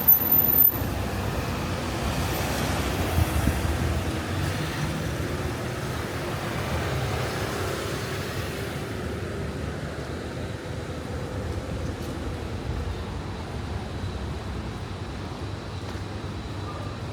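City street ambience: a steady low rumble of road traffic, with a short louder knock right at the start and another louder moment about three seconds in.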